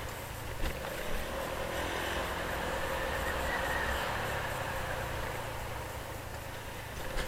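A vehicle driving slowly along a street: steady engine and road noise with a faint whine, and a short knock under a second in and another near the end.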